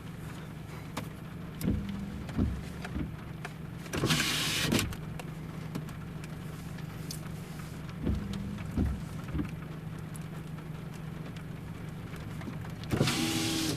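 Pickup truck idling, heard from inside the cab: a steady low hum, with a few soft knocks and two short rushing bursts, one about four seconds in and one near the end.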